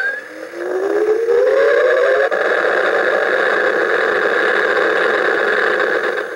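Star Trek Borg Bank's electronic warp-drive sound effect from its small built-in speaker: a tone that rises over about two seconds, then a steady engine-like hum that fades out near the end.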